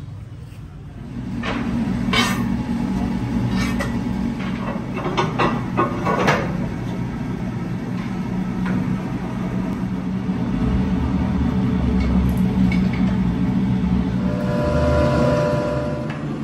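A workshop press and its drive motor running with a steady low hum, with several metal clanks and knocks in the first half. A brief whine comes near the end.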